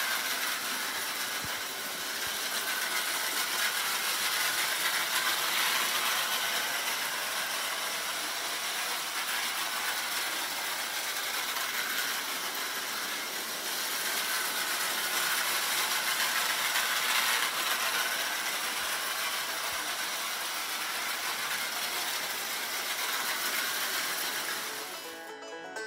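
Prewar American Flyer toy train running on three-rail tinplate track: a steady mechanical clatter of the electric motor and the wheels on the rails, swelling and fading as it circles the loop. Banjo music comes in at the very end.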